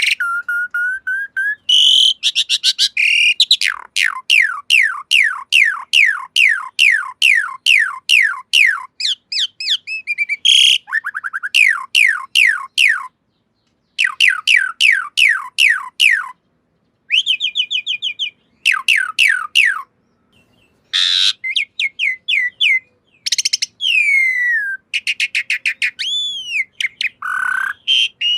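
Asian pied starling (jalak suren) song: long runs of quick downward-sliding whistles, about three a second, broken by a few harsh rasping notes and other swooping whistles. The song stops dead several times, as in an edited recording.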